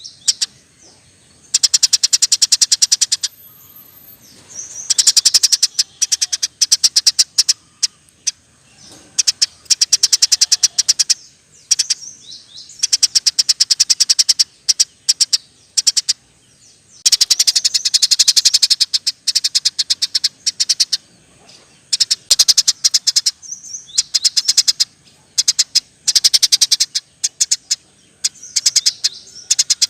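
Eurasian tree sparrow chirping in rolling runs: bursts of very fast, high chirps, each lasting a second or two, repeating with short gaps.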